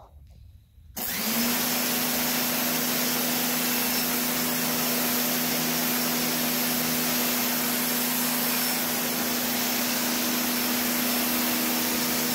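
Sun Joe electric pressure washer switching on about a second in as the trigger is pulled, its motor and pump running with a steady hum under the loud hiss of the water jet from a 15-degree nozzle spraying a concrete floor.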